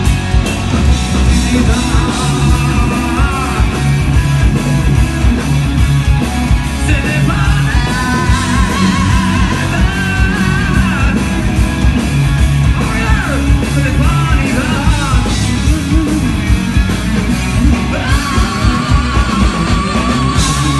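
Live rock band playing loud: electric guitars, bass and drums, with a man's singing voice over them, heard from the crowd.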